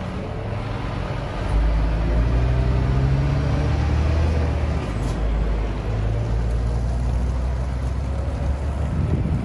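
Scania semi-truck's diesel engine pulling away with a curtain-side trailer. The engine note gets louder and rises in pitch about one and a half seconds in, then runs steadily as the truck drives off.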